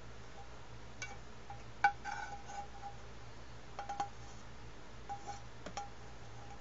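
A slotted spatula scraping and tapping scrambled eggs out of a tilted frying pan onto a plate: a handful of light knocks and scrapes, each knock followed by a short ringing tone, the sharpest about two seconds in.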